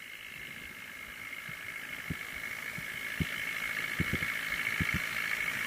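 Engines of farm machinery, a combine harvester towing a rice-laden tractor through mud, running steadily and growing gradually louder. A few irregular dull low knocks come in over the second half.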